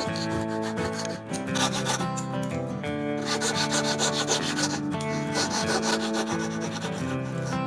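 Wood being sanded by hand in rapid repeated strokes, with background music with sustained notes underneath.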